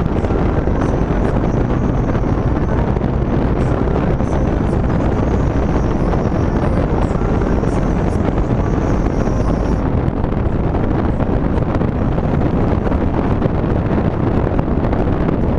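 Loud, steady wind noise rushing in through a passenger window left partly open on a moving 4th-generation Ford Mustang. The engine's low hum sits faintly beneath it, clearest in the first few seconds.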